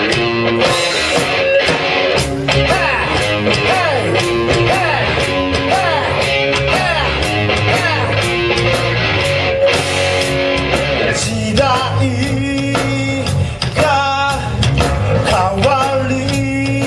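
Live rock band playing: electric guitar leading over bass and drums, with a steady beat.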